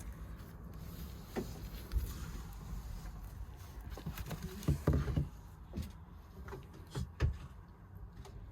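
Laptop and its packaging being handled: irregular light knocks and taps, with a few louder thumps around the middle and near the end, over a low steady hum.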